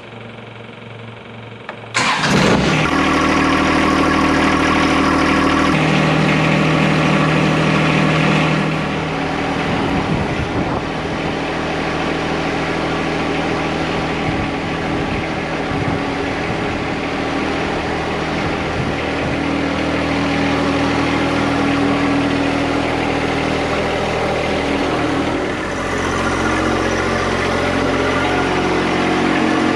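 John Deere 2025R compact tractor's three-cylinder diesel engine starting about two seconds in, then running. The engine note drops after about eight seconds and runs on steadily, with a brief dip near the end.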